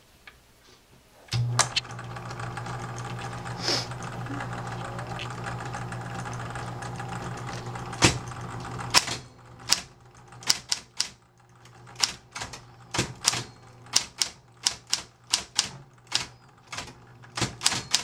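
Smith-Corona Electra 120 electric typewriter switched on about a second and a half in: the motor starts with a clunk and hums steadily. From about nine seconds in the keys strike in a run of sharp clacks, roughly two a second, over a lower hum.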